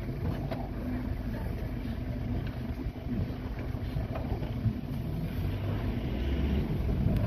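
Lions growling and snarling while they crowd and feed together on a kill: a low, rumbling, uneven growling that swells and fades.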